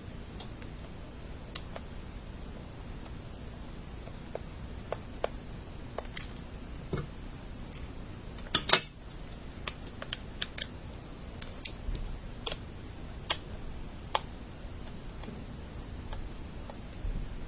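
Scattered small clicks and taps of a tri-wing screwdriver and screws as the screws are worked out of a GameCube controller's plastic shell, with a louder double click about eight and a half seconds in.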